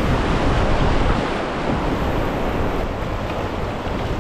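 Whitewater rapid rushing and churning around an inflatable packraft as it runs through, a loud steady rush, with wind rumble on the microphone.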